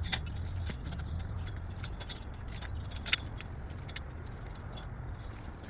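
Light metallic clinks and ticks of metal hardware being handled, with one sharper click about three seconds in, over a steady low rumble.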